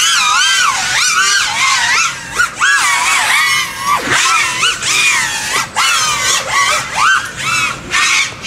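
FPV racing quadcopter's brushless motors and propellers whining in flight, the pitch sweeping rapidly up and down with throttle and dropping sharply several times as the throttle is chopped. The motor sound is crisp.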